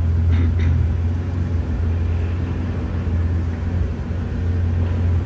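Steady low mechanical hum from a 1986 VL Commodore convertible as its power-operated soft top raises.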